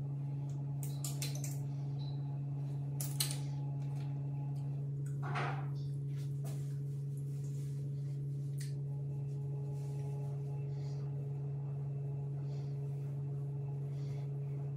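A steady low electrical hum with fainter overtones, with a few light clicks and rustles in the first few seconds as small bottles and hands are handled.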